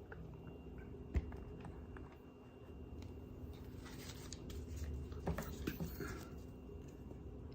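Small handling noises: a sharp tap about a second in, then a run of clicks and rustling between about four and six seconds in.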